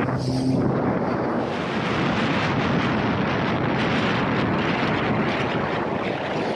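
Sea-Doo GTX 155 jet ski under way on open water. Its low engine hum is heard for a moment at first, then drowned by a steady rush of wind on the microphone and spray as the ski picks up speed.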